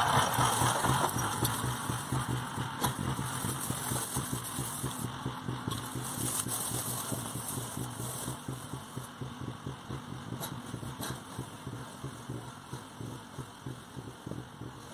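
Engine of a motocultor (two-wheel walk-behind tractor) running steadily, growing fainter as it moves away.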